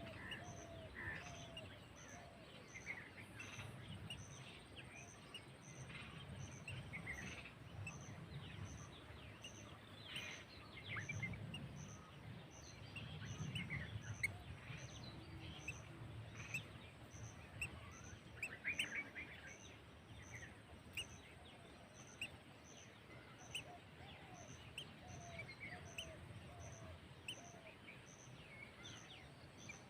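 Birds chirping and calling: many short chirps and whistled notes, some sliding in pitch, over a low background rumble. A faint high ticking repeats about one and a half times a second throughout.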